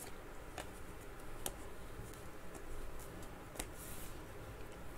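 Faint handling of football trading cards: cards sliding against one another as a stack is flipped through in the hands, with a few soft clicks.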